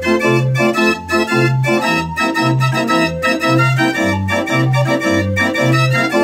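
Mechanical organ playing from punched cardboard book music: sustained chords over a bass line that alternates between two notes about twice a second.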